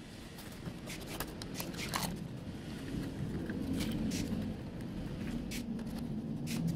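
Scattered light clicks and scrapes of a circuit board being handled and seated in a speaker cabinet, with a screwdriver at a mounting screw near the end. A low rumble runs underneath from about halfway.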